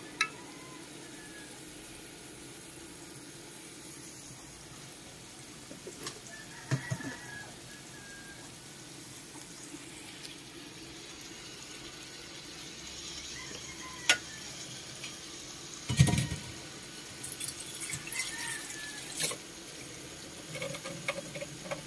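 Ensabi mustard greens cooking in a wok in their own juices: a steady hiss of sizzling and bubbling that grows brighter after about ten seconds. A metal spatula clinks and knocks against the wok a few times, loudest about sixteen seconds in.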